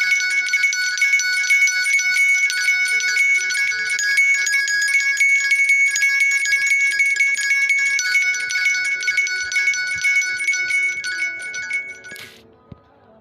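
Nokia N86 ringtone playing: a busy high-pitched electronic melody of quick short notes over two held high tones, stopping about twelve seconds in.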